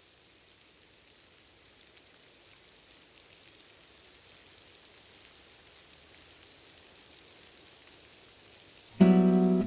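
Faint patter of rain slowly growing louder, then about nine seconds in background music starts suddenly and loudly.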